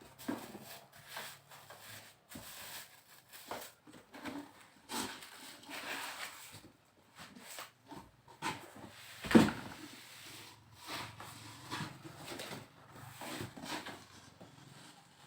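Handling noises of a gaming PC case and its packaging being unboxed: irregular rustling, scraping and small clicks, with one loud knock about nine seconds in.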